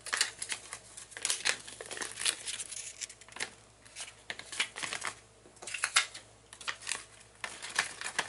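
Crinkling and rustling of a packaging pouch and plastic wrapping handled by hand, in irregular bursts with a lull about halfway through.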